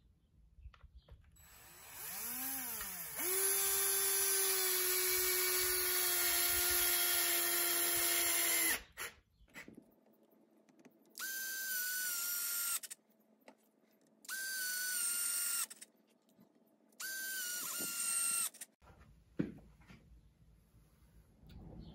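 Cordless drill/driver driving screws through a slideout's ceiling panel into its frame. It runs once for several seconds, winding up in pitch and then holding steady, then three shorter times, each run sagging in pitch as the screw bites and takes the load.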